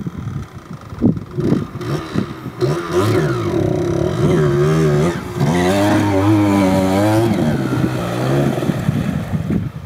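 Yamaha DT125's two-stroke single-cylinder engine revving up and down as the dirt bike pulls away and ploughs into deep water. Irregular blips at first, then a wavering, rising and falling engine note that dies away suddenly just before the end.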